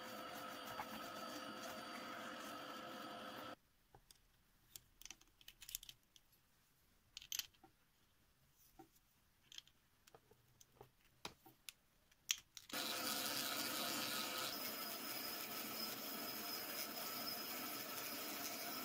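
Handheld rotary engraver running with a steady whine, grinding excess cured epoxy resin off a ring, then switched off about three and a half seconds in. Light clicks and taps follow as a bit is swapped from the accessory case, and the engraver starts up again about thirteen seconds in and runs on steadily.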